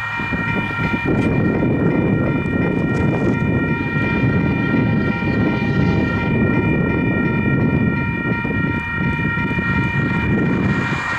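Diesel locomotive air horn held in one long steady chord, sounding for a road grade crossing, over a loud low rumble.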